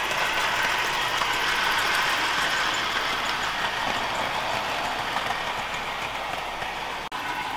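Hornby OO-gauge model train running on its track, the locomotive's electric motor whirring steadily and the wagons rolling over the rails. It swells as the train passes a few seconds in and briefly drops out near the end.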